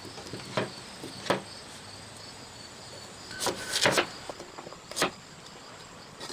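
Kitchen knife chopping white radish (daikon) on a cutting board: a handful of separate chops with pauses between them, and a quick cluster of chops near the middle.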